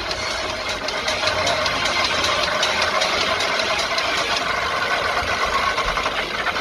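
Go-kart engine running at track speed, a steady drone from onboard footage.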